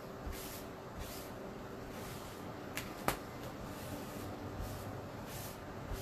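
Quiet handling of craft materials over a steady low hum, with two sharp clicks close together about three seconds in.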